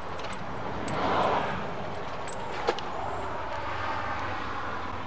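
Steady outdoor background noise that swells briefly about a second in and rises gently again later, with one faint click about two and a half seconds in.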